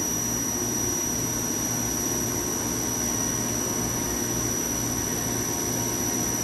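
Neway VM-1103H CNC vertical machining center spindle running steadily at 8,000 rpm: an even high whine over a soft hiss, nice and quiet, the sign of healthy spindle bearings.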